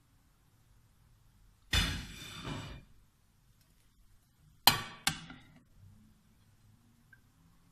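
A plate scraping against an enamel cooking pot for about a second as vegetables are slid in, then two sharp clangs with a short ring, half a second apart, as a plate knocks against the pot.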